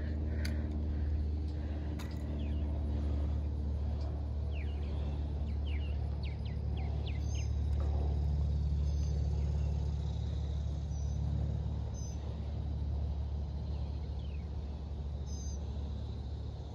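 Wind rumbling on the microphone, a steady low rumble that swells and eases, with a few short bird chirps about five seconds in and again near the end.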